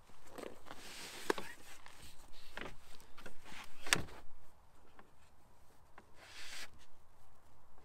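A 15 kg sandbag being handled and shifted on a wooden slatted table: rubbing and scuffing with several short knocks, the sharpest about four seconds in, then a few quieter brief rustles.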